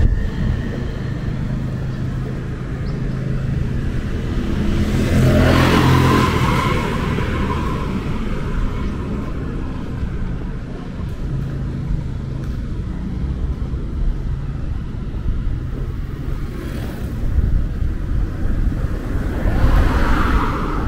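City street traffic: a steady low rumble of engines, with one vehicle passing about five to seven seconds in and another near the end, each swelling and fading.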